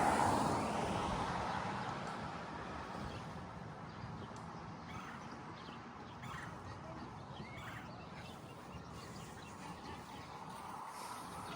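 A vehicle passes and fades away over the first couple of seconds, leaving quiet outdoor ambience with faint, scattered bird calls.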